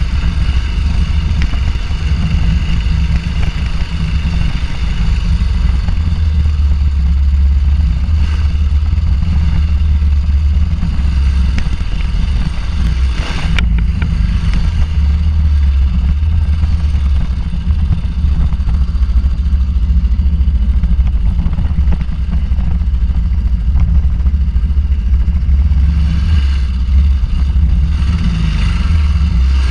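Suzuki DR800 Big's big single-cylinder four-stroke engine running as the bike is ridden over a dirt track, the throttle shifting a little without big revs. A single sharp knock about halfway through.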